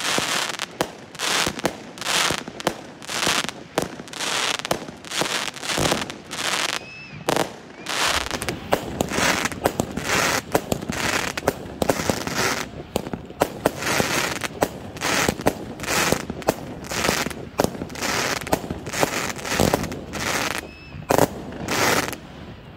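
Aerial fireworks going off in a long, rapid series of sharp bangs, about two a second, as shell after shell bursts overhead.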